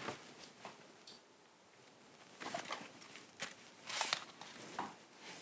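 Faint, scattered clicks and rustles of items being handled and taken off the shelves of a kitchen cupboard.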